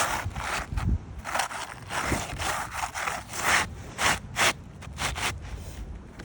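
New granule-surfaced asphalt shingle being pushed and worked into place under the existing shingles, scraping and rubbing against them in a series of short, irregular strokes.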